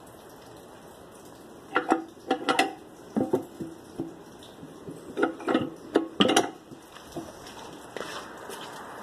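Chrome toilet flush handle being worked by hand: a series of sharp metallic clicks and clinks with a short ringing tone, between about two and six and a half seconds in.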